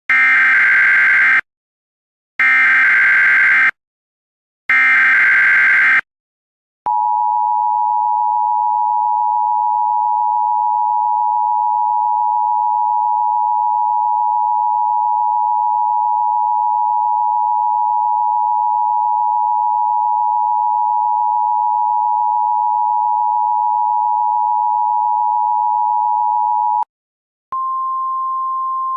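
Emergency Alert System signal: three bursts of SAME header data, each a little over a second long, followed by the two-tone attention signal, a steady dual-pitched tone held for about twenty seconds. The attention tone cuts off, and near the end a single, slightly higher steady tone begins.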